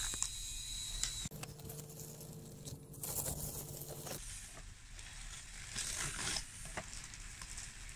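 Radio-controlled 1:14 scale CAT D6T bulldozer pushing gravel: its electric track motors whine steadily for about three seconds, and gravel crunches and scrapes under the blade and tracks. The motors are running freely, the tracks freshly cleaned of mud.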